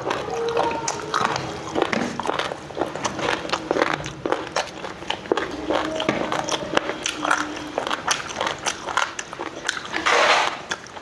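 Close-up eating sounds: a person chewing a mouthful of rice, making many short, quick mouth clicks, with a louder noisy burst about ten seconds in.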